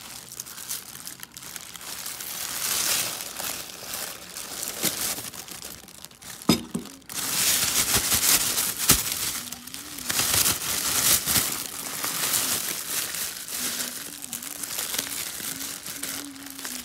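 Clear plastic bag crinkling and rustling as raw marinated chicken wings are handled and packed into it, with a couple of sharp clicks about six and a half and nine seconds in.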